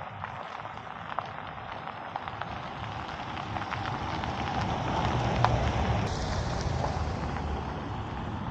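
Pickup truck driving past on a gravel road: tyres crunching and pinging on the gravel over a low engine rumble, growing louder to a peak about five and a half seconds in as it passes, then fading as it moves away.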